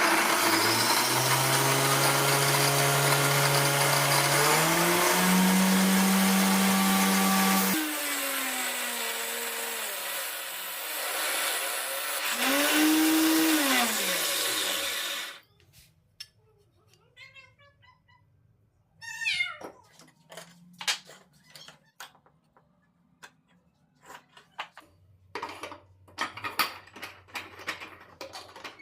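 Electric power tool motor running loud for about eight seconds with its pitch stepping upward, then winding down, revving briefly once more and stopping about fifteen seconds in. Scattered light clicks and knocks follow.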